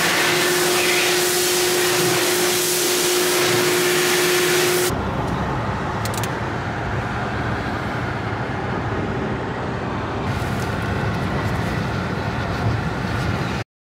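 A loud, steady hiss with one held tone for about the first five seconds. Then a sudden cut to the low rumble of a vehicle interior on the move, which stops abruptly just before the end.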